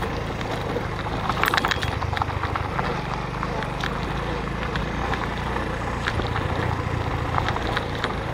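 Motorcycle engine running steadily while riding over a rough gravel road, with many sharp clicks and rattles from stones under the tyres and the bike shaking.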